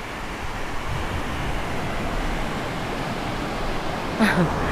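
Ocean surf breaking on a beach, a steady wash of wave noise with wind on the microphone. A brief falling voice-like sound cuts in about four seconds in.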